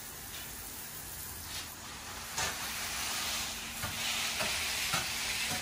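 Garden hose spray nozzle spraying a fine jet of water onto leafy plants: a steady hiss that comes in about two seconds in and grows louder.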